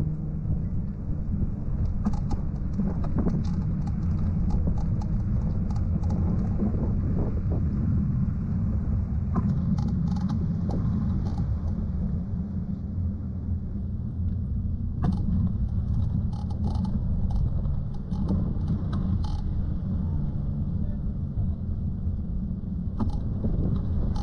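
Steady wind rumble on the microphone of a moving camera, with scattered faint clicks.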